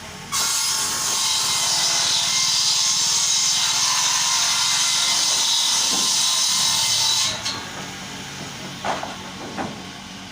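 A woodworking machine cutting through a length of timber: a loud, steady, whining hiss that starts about half a second in and stops abruptly about seven seconds in. A couple of short knocks follow in the quieter background near the end.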